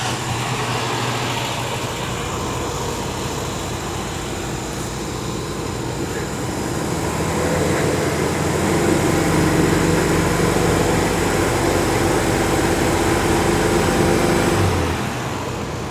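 1961 VW Beetle's air-cooled flat-four engine running steadily. It speeds up about seven seconds in, holds the higher speed, then drops back to idle near the end. The engine is running so the generator's charging of the battery can be checked.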